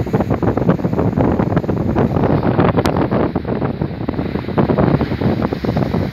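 Strong wind buffeting the microphone in irregular gusts, over the rush of rough sea breaking along an oil tanker's hull.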